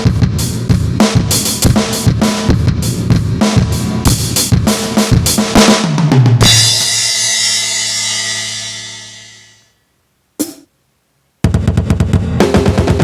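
Aroma TDX-15S electronic drum kit: a fast beat of kick, snare and cymbal hits ends on a crash that rings and fades out over about three seconds. After a single short hit in the silence, a dense beat starts again near the end.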